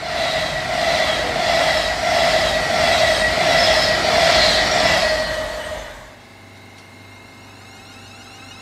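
Avanti West Coast Class 390 Pendolino electric train passing at speed: a loud rush of wheels on rail with a steady whine, which cuts off abruptly about six seconds in. After that comes the quieter low hum of a ScotRail Class 380 electric unit starting to pull away from the platform.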